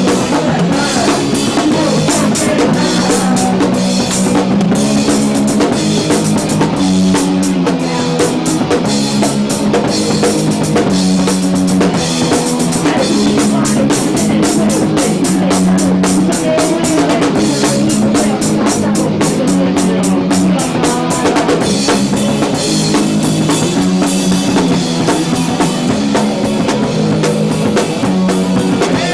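A punk band playing live: electric guitar, bass and drum kit, with rapid cymbal strikes over a steady low riff.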